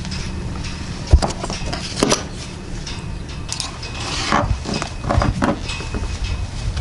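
Metal clips of a sailing safety harness tether clinking and clicking as the tether is handled and clipped toward the jack stay, with one sharp click a little over a second in and a run of clinks in the second half, over a steady low rumble.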